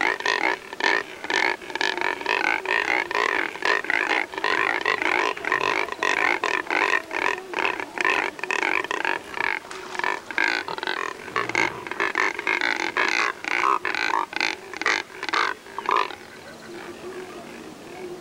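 A flock of Neotropic cormorants giving loud, guttural calls, several birds overlapping in a rapid string of short calls. The calling dies down about two seconds before the end.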